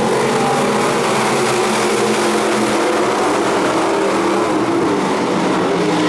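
A pack of dirt-track stock cars racing together, several engines running at once in a loud, steady drone of overlapping engine notes.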